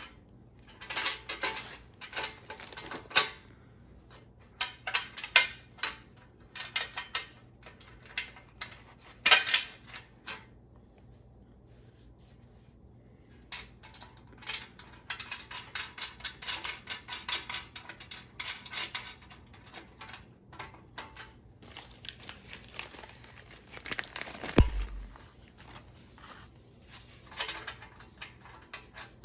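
Hand tools and metal hardware clinking and rattling in irregular bursts while rear bumper bracket bolts are tightened, with a run of rapid ticking midway and a heavier metallic knock near the end.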